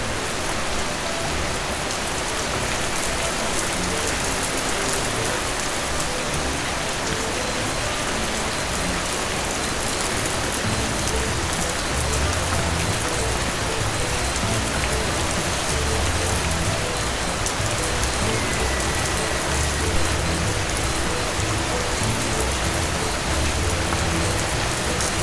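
Steady rain falling, an even hiss throughout, with soft low notes underneath.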